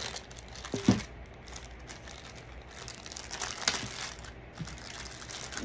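Thin clear plastic bag crinkling and rustling as hands pull it off a water bottle, with a couple of louder crackles about a second in and past the middle.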